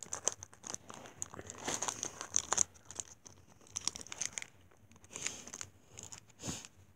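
Foil wrapper of a Pokémon Sun & Moon booster pack crinkling in irregular bursts as fingers work at it to open it.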